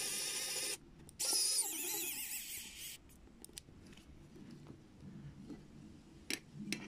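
Small electric screwdriver driving screws into metal skull parts: a steady motor whine that stops under a second in, then a second run of about two seconds with a wavering pitch. After it come faint clicks and rubbing of the metal parts being handled.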